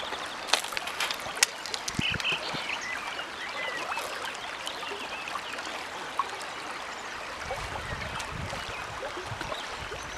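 Shallow river flowing over a gravel bed, a steady rippling rush of water, with a few sharp clicks in the first second and a half.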